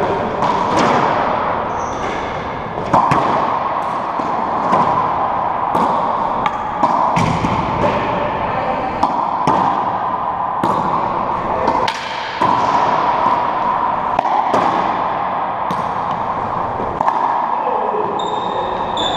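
Racquetball rally: a hollow rubber ball struck by racquets and rebounding off the walls and floor of an enclosed court, in irregular sharp cracks that echo around the court. A short high squeak comes near the end.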